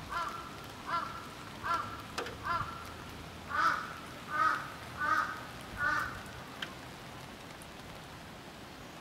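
A crow cawing, about eight short caws a little under a second apart, the later ones louder, over a steady patter of rain.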